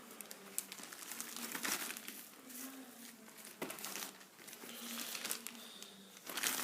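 Packaging crinkling and rustling in irregular bursts as a package is handled and opened.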